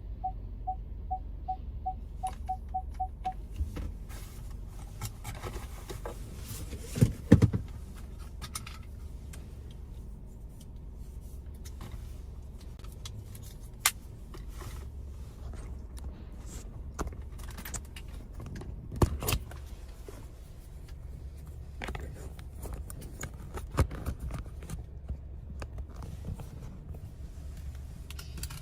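Strong wind buffeting the microphone as a steady low rumble, with scattered clicks and knocks, the loudest about seven seconds in and again near the middle. In the first three seconds a run of short beeps comes faster and faster.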